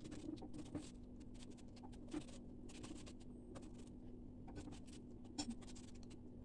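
Kitchen knife cutting a hand-held head of cabbage into a pot: irregular short crisp slicing and scraping sounds, a couple of sharper cuts among them, over a steady low hum.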